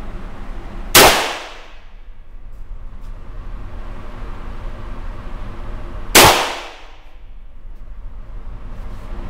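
.38 Special handgun fired twice, about five seconds apart, each shot a sharp crack with a short echoing tail.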